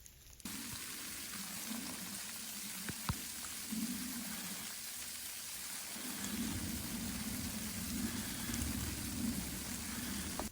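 Steady rain, a dense even hiss with a few sharp drop clicks, starting abruptly about half a second in and cutting off at the end.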